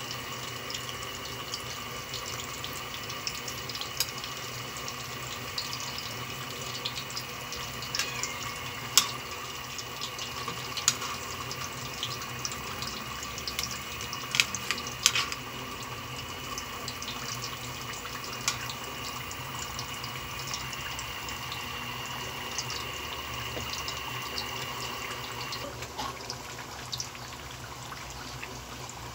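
Sliced sweet potatoes deep-frying in hot oil in a metal pan: a steady sizzle with scattered crackles, and a few sharp clinks of a metal utensil against the pan around the middle.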